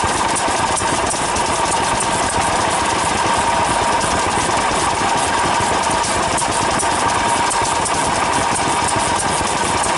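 Vintage stationary engines running steadily, a continuous mechanical clatter of rapid ticks with a steady high hum.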